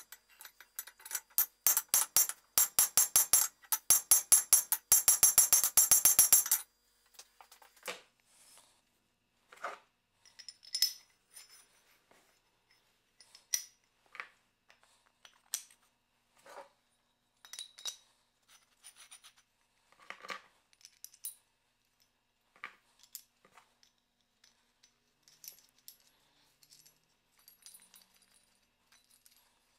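A hand hammer striking a punch held on a steel plate over an anvil, a rapid run of ringing steel-on-steel blows that stops suddenly about six seconds in. Then scattered light clinks and knocks of steel parts (washers, a plate, a bolt) being handled on a workbench.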